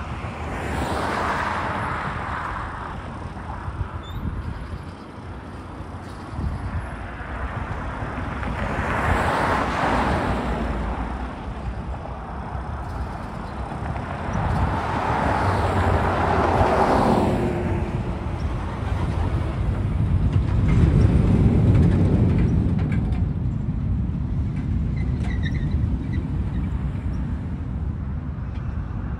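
Road traffic passing: several vehicles go by one after another, each a rising and fading rush of tyre and engine noise. Around twenty seconds in comes a deeper, lower swell as the semi truck's engine pulls through.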